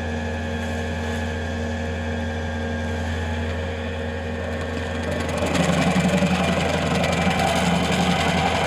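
Bobcat skid-steer loader with a stump grinder attachment, its engine running steadily, then growing louder and rougher about five seconds in.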